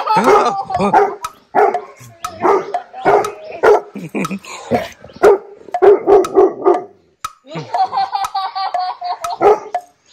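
Labrador retriever barking in a repeated string, about two barks a second, at a stranger in a ghost mask, with a longer drawn-out sound near the end.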